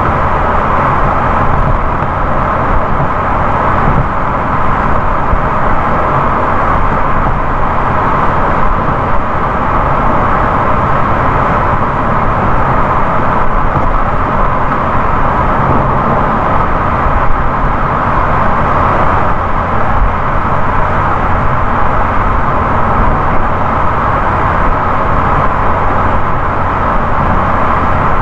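Steady road noise of a car cruising at highway speed: an even rush of tyre and wind noise over a low rumble, with no changes.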